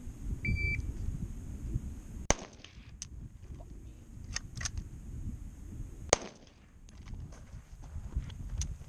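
A short electronic beep like a shot timer's start signal, then two loud rifle shots about four seconds apart, with fainter clicks between them. The rifle is giving its shooter trouble.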